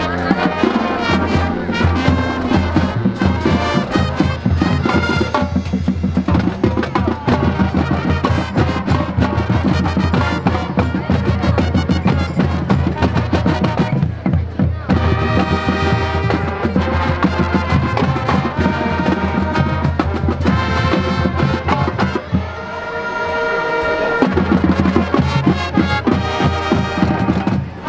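High school marching band playing: brass over marching percussion with a steady run of drum hits. About three-quarters through the music thins briefly, then builds back into held brass chords.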